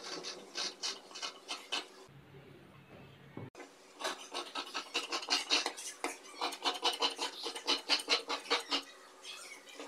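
Tailor's shears cutting through layers of folded dress fabric: a run of quick snips about three a second, a short pause about two seconds in, then a longer, steady run of snips.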